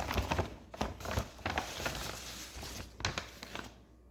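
Packaging rustling and crackling as a mailed parcel is handled and opened, a run of short irregular crinkles and clicks that dies away near the end.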